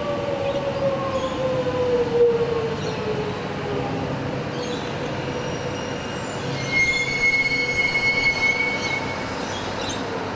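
Electric suburban train moving at the station, its motors whining in a pitch that falls steadily over the first few seconds. From about six and a half seconds in, a high-pitched steel wheel squeal is heard for two or three seconds.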